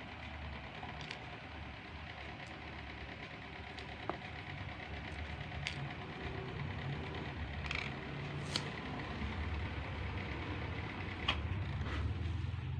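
Steady low mechanical hum with scattered small sharp clicks and taps, about eight of them, from tools handling a wristwatch's case and movement parts.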